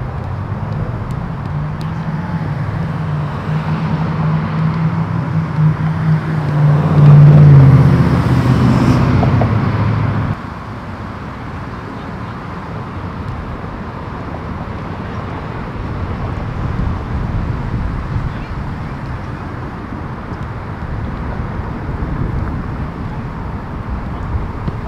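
A motor vehicle's engine hum, steady and low-pitched, growing louder to a peak and then cutting off suddenly about ten seconds in, over a steady outdoor rumble.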